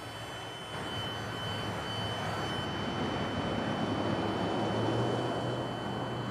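Tail end of a Norfolk Southern freight train rolling past: a steady rumble of steel wheels on the rails that swells a little louder near the middle and eases off toward the end.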